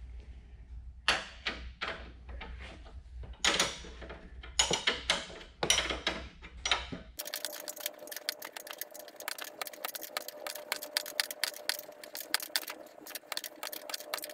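Metal tools clattering against the suspension for a few seconds, then a ratchet clicking rapidly and evenly over a faint steady tone as the fastening on a new lower control arm is tightened.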